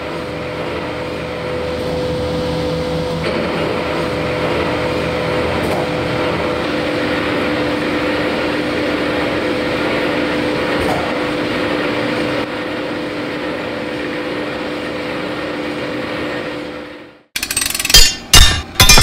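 Metal lathe running and cutting a steel workpiece, a steady machine sound with a constant hum that shifts slightly as the cut changes. It stops suddenly near the end, followed by a few loud sharp knocks.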